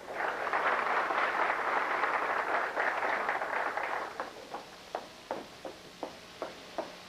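Audience applauding, a dense patter of clapping that dies away about four seconds in to a few scattered single claps.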